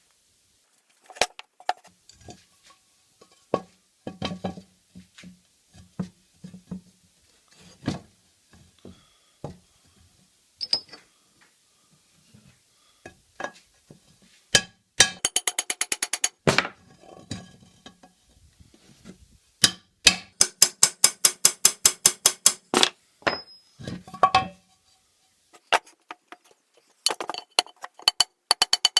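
Ball-peen hammer striking a concave punch on a frypan's handle rivets, peening the loose rivets tight against a shoe last. Scattered single knocks at first, then several runs of quick, even, ringing metal strikes, about five a second.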